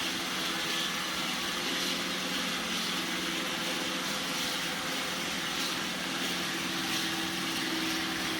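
iRobot Roomba 960 robot vacuum running while it cleans: a steady whirring hiss with a low, even hum underneath.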